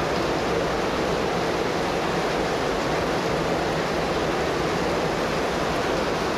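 Steady rush of water in a flooded drain channel, mixed with falling rain, an even hiss without breaks.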